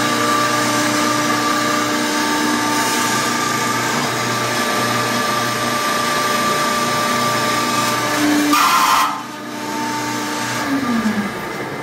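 Electric hydraulic pump of a shop-built hydraulic press running steadily with a held hum while the ram presses a mold closed. About eight and a half seconds in it gives a brief louder rush, then settles to a quieter steady run.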